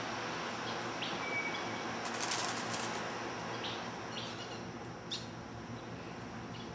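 A bird's wings flapping in a quick run of beats about two seconds in, over a steady background hiss. A few short high chirps come before and after, and there is one sharp click near five seconds.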